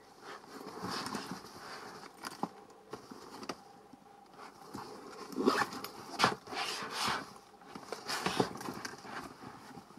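Hands handling an open leather shoulder bag and rummaging in its cloth-lined pockets: irregular rustling with soft knocks and clicks, louder for a couple of seconds past the middle.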